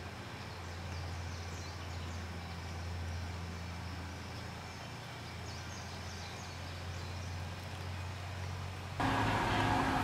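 Outdoor ambience: a steady low rumble with faint, high bird chirps now and then. About nine seconds in it switches abruptly to a louder, fuller noise with a low hum.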